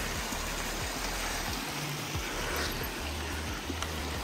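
Creek water running steadily over rocks and small falls.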